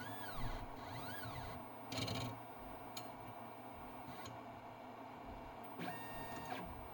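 Huvitz HFR 8000 frame tracer's stepper motors running its tracing mechanism: two rising-then-falling whines as the mechanism speeds up and slows down, a short clack about two seconds in, a tick, and a steady tone for under a second near the end.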